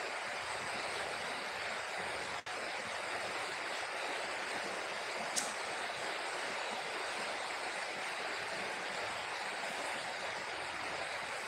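Steady rushing noise with no pitch, even throughout, broken by a momentary dropout a couple of seconds in and a single short click about five seconds in.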